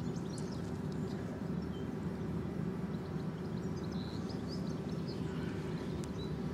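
Steady low outdoor rumble, with small birds chirping faintly and sporadically over it.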